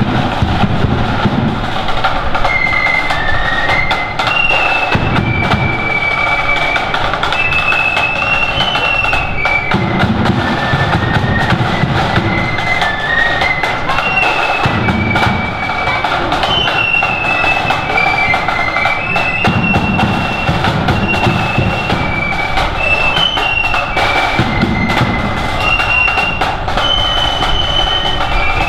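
Marching flute band playing a tune: flutes carry a stepping melody over snare drums, with bass drum coming and going every few seconds.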